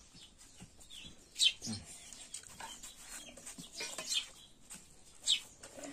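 Chickens clucking, with a few short, sharp high calls: the loudest about a second and a half in, others around four seconds and near the end.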